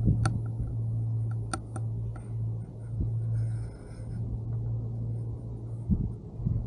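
Gondola cabin riding down its cable, with a steady low hum from vibration coming through the cabin and a few sharp clicks in the first two seconds. Wind buffets the microphone near the end.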